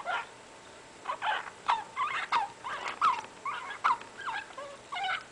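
Pet rat wheezing, a string of short squeaky noises about three a second with its laboured breathing, the sign of lung abscesses from a mycoplasma respiratory infection filling most of its lungs.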